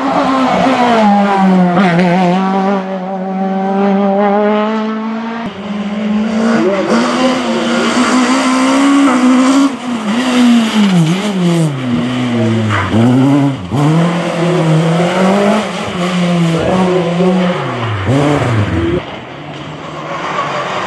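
Racing car engines at full throttle, a succession of cars passing. First one engine holds a steady high note for several seconds, then others rev hard, rising and dropping sharply in pitch with gear changes and throttle blips through corners.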